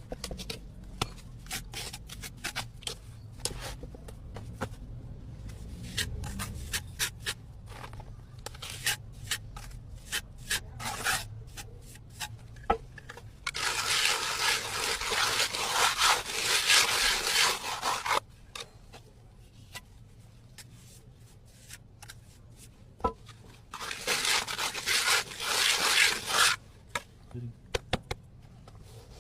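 Hand tools scraping and rubbing on a plastered wall, with many small taps and clicks and two longer stretches of steady scraping, one about halfway through and one near the end.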